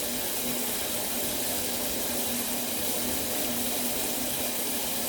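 Tap water running steadily as githeri (maize and beans) is rinsed before cooking.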